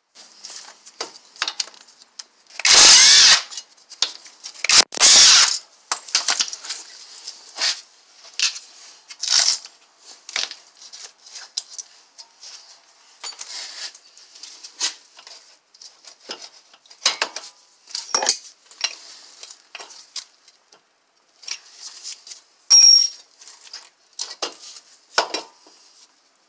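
Irregular clinks and clatter of metal hand tools on a car's front suspension and brake assembly, with a few short metallic rings. Three louder bursts, each about a second long, come at about three and five seconds in and again near the end.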